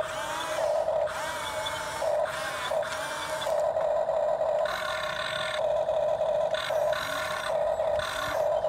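Radio-controlled excavator's small motor running with a steady high whine, broken by brief noisy bursts about halfway through and again a couple of seconds later.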